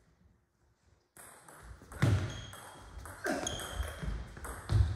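Table tennis rally: the plastic ball clicking sharply off bats and table, three hits about a second and a half apart, starting after a near-silent first second.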